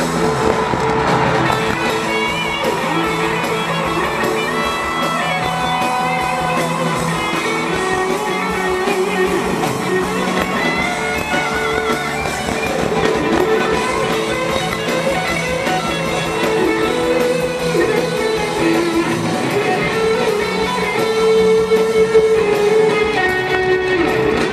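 Live rock band playing in an arena, led by electric guitars over drums, picked up from the audience by a small handheld camera's microphone.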